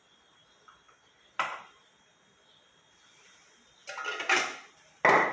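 A spoon knocking against a mixing bowl of cake batter: a single clink, a quick cluster of knocks about four seconds in, and a louder clink with a short ring near the end.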